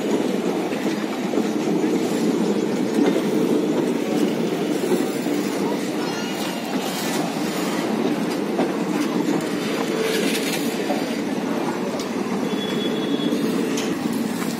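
Passenger coaches of a departing express train rolling past on the rails, a steady loud rumble of wheels on track.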